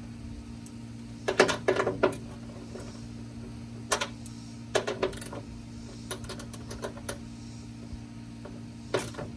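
Socket ratchet clicking in short bursts, with sharp metal clicks, as the 10 mm nuts holding the hood-catch bracket to the hood are worked loose.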